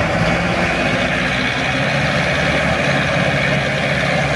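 Diesel engines of a Lovol tractor and a T-40 tractor idling steadily, a low even drone with no change in speed.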